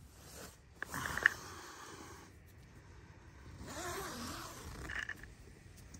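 Nylon tent fabric and down quilt rustling as someone moves inside a small tent, with the tent door's zipper being worked. The noise comes in two spells, about a second in and again around four to five seconds in, with a sharp click in the first.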